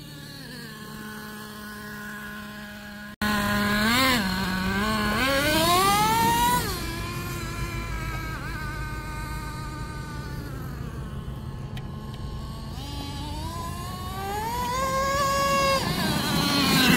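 Traxxas T-Maxx 3.3 nitro RC truck's small two-stroke glow engine. It idles steadily at first, then, after a cut about three seconds in, revs up and falls back several times as the truck drives, climbing high twice.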